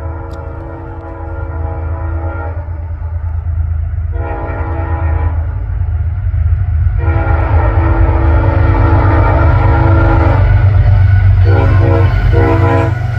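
A diesel locomotive's Leslie S5T five-chime air horn sounding a chord: a long blast ending about two and a half seconds in, a shorter one around four seconds, a long one from about seven to ten seconds, then two quick short toots near the end. Underneath, the locomotive's engine rumbles, growing louder as the train approaches.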